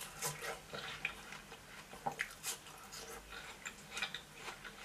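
A person biting into and chewing a slice of watermelon: faint, irregular chewing sounds with small clicks.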